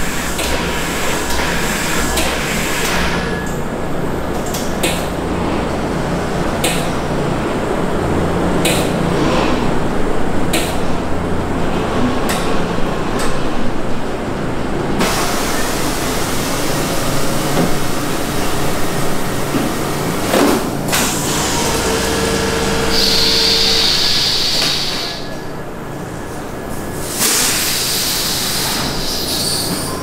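Machinery running steadily, with repeated sharp clanks and knocks and a brief whistling tone about two-thirds of the way through.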